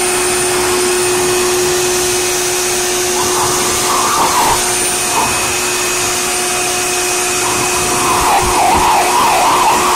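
Electric blower running steadily, a constant motor whine over a rush of air, blowing at a dog. The sound wavers briefly about four seconds in and again near the end as the dog snaps at the airstream.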